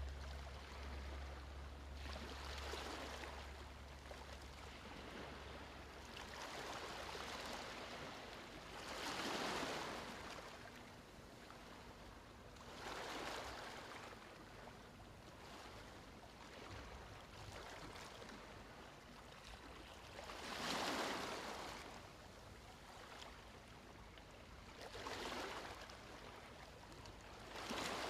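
Soft ocean waves washing in: a gentle surge of surf that swells and recedes every few seconds.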